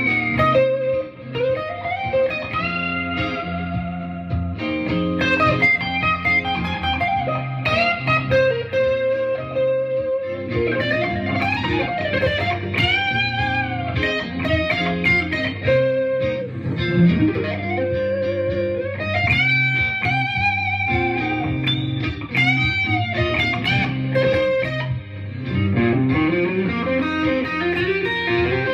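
Electric guitar playing a blues lead over a C minor blues chord loop: single held notes with vibrato and string bends that glide up and back down.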